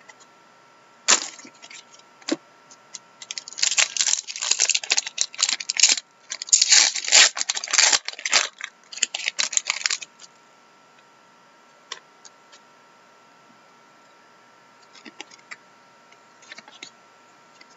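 Foil trading card pack wrapper being torn open and crinkled by hand, a dense crackling that runs for several seconds after a single sharp tap about a second in, then only a few faint rustles and ticks of the cards being handled.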